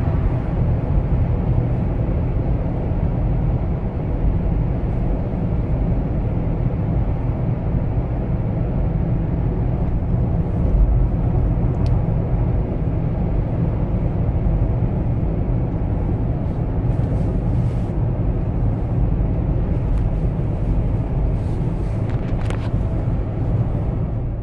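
Cabin noise of a 2018 Toyota 4Runner cruising at about 60 mph: a steady low rumble of road, tyre and engine noise, the tyres being BFGoodrich KO2 all-terrains.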